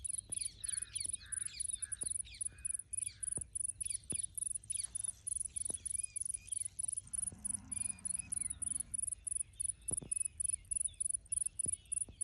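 A high-pitched pulsing sound repeating steadily about four times a second, with birds chirping over it. A few sharp clicks come through, and a short low hum sounds about seven seconds in.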